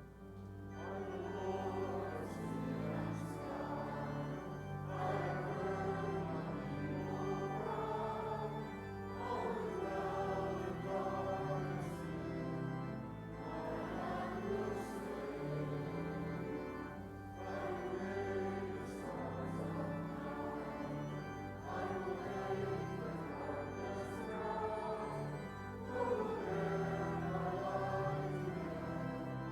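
Voices singing a hymn with church organ accompaniment, in phrases of a few seconds each over held low organ notes.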